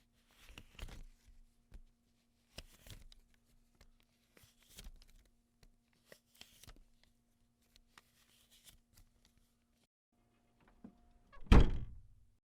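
Paper banknotes being flipped, in four short rustling bursts about two seconds apart. Near the end a door shuts with one loud thunk.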